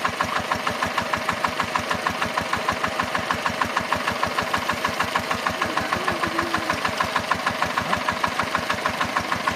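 Diesel engine driving an irrigation water pump, running steadily with a fast, even knocking beat.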